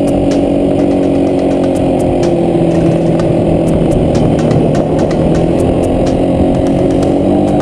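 Quad bike (ATV) engine running steadily as it rides along, its note holding fairly even, with frequent faint clicks and rattles over it.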